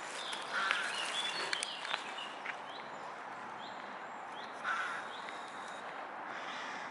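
Birds calling outdoors: two short, louder calls, about a second in and again near five seconds, with a few faint short chirps between, over a steady background hiss.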